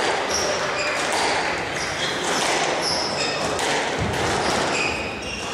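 Squash rally: the ball smacking off rackets and walls several times, with short high squeaks of court shoes on the wooden floor and a murmur of spectators behind.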